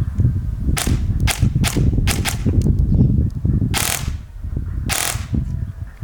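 Airsoft gun firing with a bare muzzle, no amplifier fitted: a string of sharp pops, about six in the first two and a half seconds, then two longer ones near four and five seconds, over a steady low rumble.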